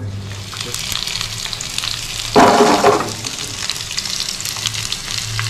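Chicken breast frying in oil and butter in a frying pan on low heat: a steady crackling sizzle over a low hum, with one louder burst lasting about half a second roughly halfway through.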